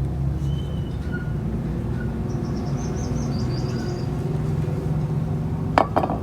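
A steady low rumble like a motor or engine running, with a quick high chirping trill partway through and a sharp knock near the end.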